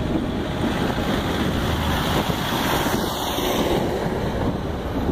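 Diesel semi truck's engine running as it approaches along the street, with wind buffeting the microphone.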